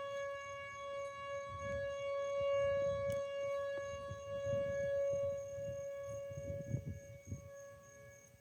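Outdoor tornado warning siren sounding one steady, unwavering tone, its higher overtones fading after about the halfway point. Low gusty rumbling comes and goes underneath from about one and a half seconds in.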